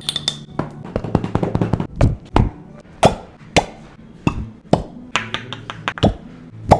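A rapid, irregular run of sharp taps and knocks, with several heavier thumps about two to three and a half seconds in.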